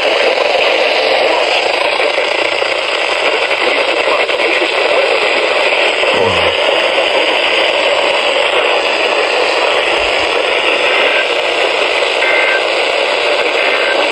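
Steady loud static hiss from a weather radio receiver that has lost a weak, distant NOAA Weather Radio signal, so only noise comes through its speaker.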